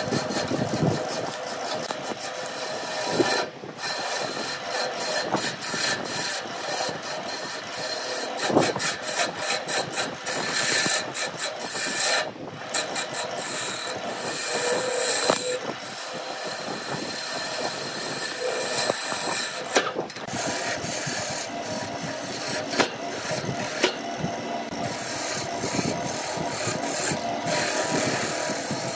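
Turning chisel cutting a spinning wood blank on a wood lathe: a continuous rough scraping rasp as the tool shaves the wood, broken by many short ticks as the cut catches. Underneath runs the lathe's steady hum.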